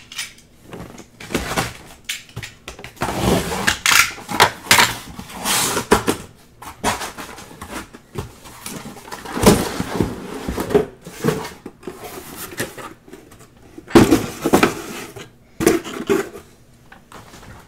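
A sealed cardboard case being torn open and its shrink-wrapped card boxes pulled out and set down: a run of irregular tearing, scraping and rustling of cardboard and plastic wrap, with a couple of louder knocks as boxes are put down.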